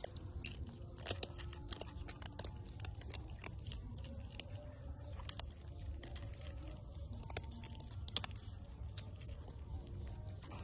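Two kittens crunching and chewing dry cat kibble: a stream of irregular crisp crunches and clicks, over a low steady background rumble.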